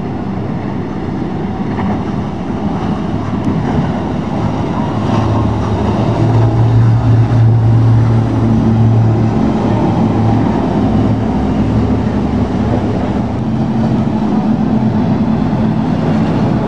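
Outboard engines of a Contender center-console boat running at high speed, a steady drone with a low hum over the rush of water and spray. It grows louder over the first several seconds as the boat comes closer, then holds.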